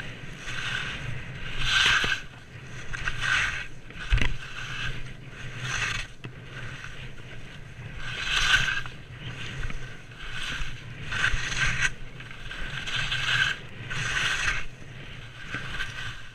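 Skis turning down a groomed snow trail: the edges scrape and hiss over the snow in swells, one with each turn, about every one to two seconds, over a steady low rumble. A single thump about four seconds in.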